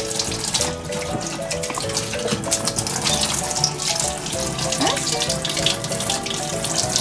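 Water spraying steadily from a hand-held shower hose into a grooming tub, the groomer running it over a gloved hand to check the temperature. A simple music melody plays underneath.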